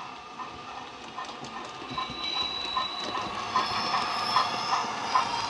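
Hornby model of the LNER rebuilt W1 streamlined steam locomotive running on its DCC sound decoder, playing the SWD A4 steam sound file through a bass-enhanced speaker: a steady exhaust chuff, about two and a half beats a second, growing louder about two seconds in as the model comes nearer.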